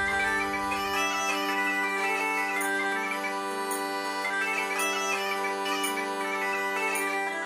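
Background bagpipe music: a melody played over a steady, unbroken drone.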